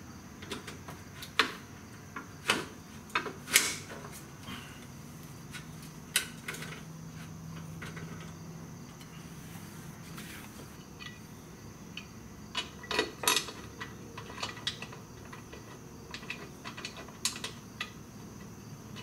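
Irregular metallic clicks and clinks of hand tools on bolts and metal parts as a motorcycle's exhaust silencer is fitted back on, with a few louder knocks in between.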